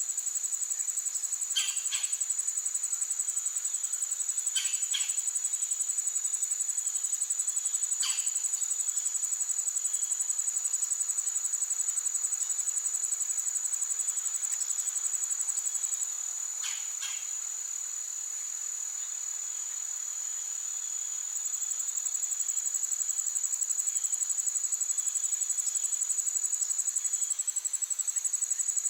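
A steady, high-pitched, pulsing trill from a chorus of insects, which eases for a few seconds past the middle. A few short, sharp chirps cut through it now and then.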